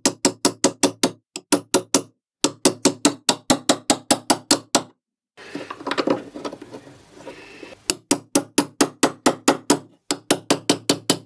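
A hammer tapping a bolt, driving it through the pulley assembly's bearings, in quick even blows of about four or five a second, each with a short metallic ring. The blows break off briefly a few times, and there is a longer stretch of rougher handling noise in the middle.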